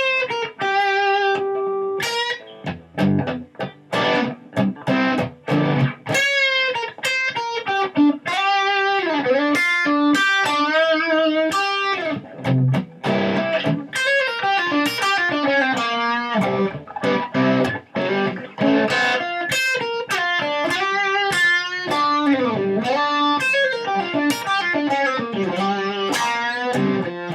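Electric guitar playing single-note blues lines in G minor pentatonic, in the fifth-position shape up the neck, with frequent string bends that slide the notes up and back down.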